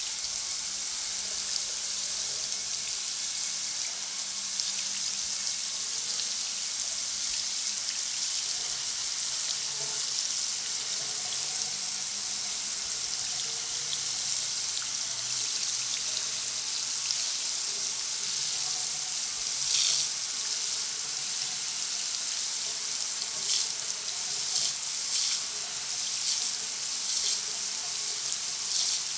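Shower spray running steadily, a continuous hiss of falling water, with a few brief louder splashes near the end.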